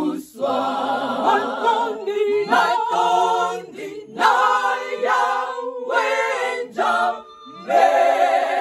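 Women's choir singing a cappella in short sung phrases, with a brief pause near the end before the voices come back in.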